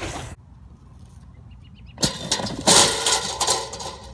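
Scuffling and rubbing of a hand-held phone against clothing and the roof as someone scrambles off a roof. It starts with a brief knock, settles into a low rumble, and about two seconds in turns into a loud burst of scraping and knocking that lasts nearly two seconds.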